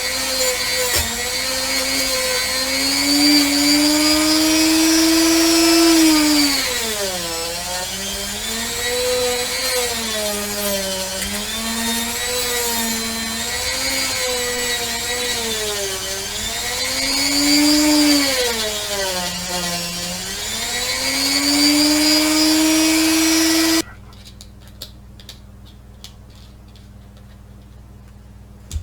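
Handheld rotary tool sanding a pewter cast, its motor whine dipping in pitch each time it is pressed into the metal and rising again as it is eased off. The motor cuts off suddenly about five seconds before the end, leaving a few light clicks.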